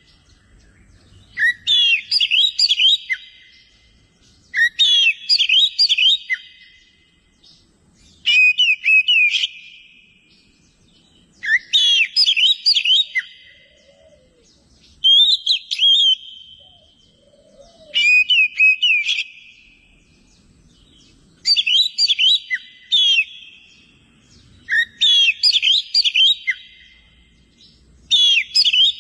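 Cucak ijo (green leafbird) singing in full, vigorous song (gacor). It gives about nine loud, rich phrases of whistles and quick notes, each a second or two long, repeated every three to four seconds.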